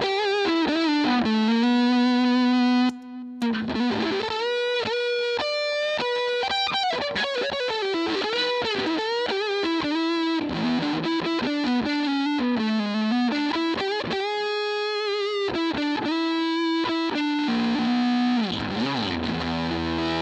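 Electric guitar played through a Dunlop Fuzz Face fuzz pedal into a Fender Pro Junior 15-watt amp: a distorted lead line with notes bent up and down. There is a brief break about three seconds in and a falling slide in pitch near the end.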